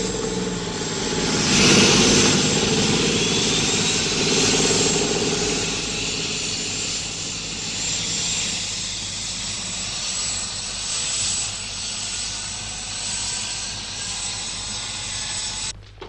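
Hovercraft running on its engine and ducted propeller, a steady droning noise, loudest about two seconds in as it comes ashore. It cuts off abruptly near the end.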